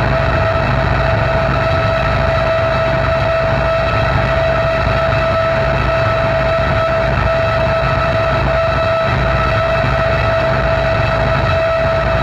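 Harsh electronic noise from a chain of guitar effects pedals: a dense, unchanging drone of low rumble and hiss, with a steady held tone in the middle range.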